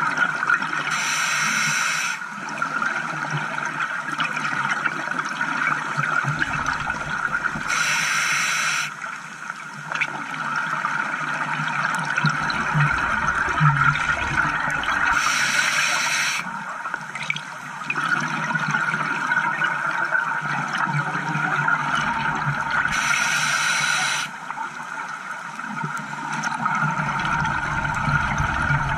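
Underwater scuba breathing through a demand regulator: a hissing breath about every seven seconds, four times, with the rushing gurgle of exhaled bubbles between them.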